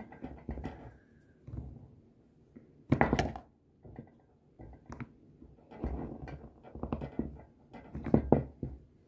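A small plastic toy being handled and knocked against a tabletop: a string of separate thunks and clatters with quiet gaps. The loudest comes about three seconds in, and a busier cluster follows in the last few seconds.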